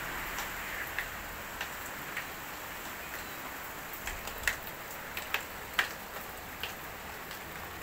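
Light rain hissing steadily, with about a dozen irregular sharp ticks of drops landing on hard surfaces, as a hail storm eases off.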